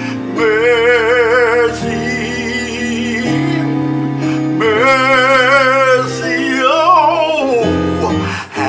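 A slow gospel song: a male voice sings long held notes with wide vibrato over sustained backing chords, one phrase sliding downward near the end.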